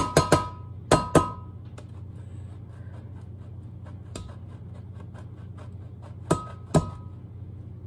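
Knife slicing a block of cheddar cheese and striking the glass dish beneath it. There are six sharp clinks in three pairs, each with a brief ring, and faint ticking cuts between them.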